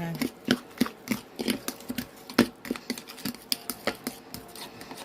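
Fork clicking and tapping irregularly against a mixing bowl while stirring cornbread batter, the loudest tap about two and a half seconds in.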